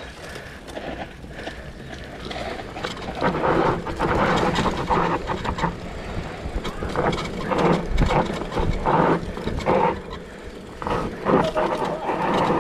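Mountain bike rolling fast down a dry dirt trail: tyre noise with the bike knocking and rattling over bumps, uneven and getting louder about three seconds in.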